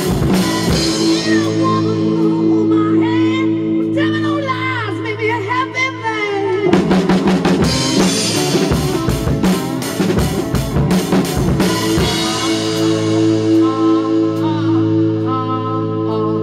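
Acoustic drum kit played along to a rock recording: snare, bass drum, tom and cymbal strokes over the record's sustained notes. The drumming thins out in the last few seconds while the recorded music carries on.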